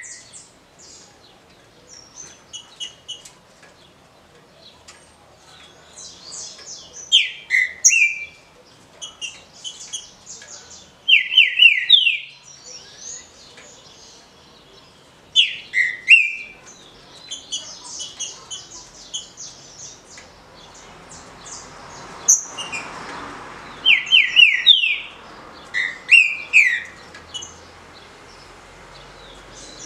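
Caged green-winged saltator (trinca-ferro) singing its short 'roda' song. Every few seconds comes a loud phrase of a few quick, falling whistled notes, with fainter high twittering between the phrases.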